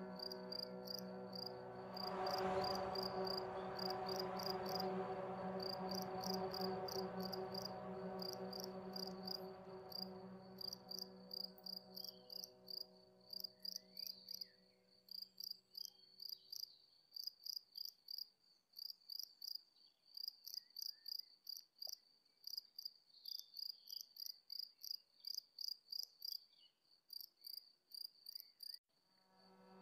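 Crickets chirping in a steady run of quick, regular pulses. They are layered over a soft sustained musical drone that fades out about halfway through, leaving the crickets alone.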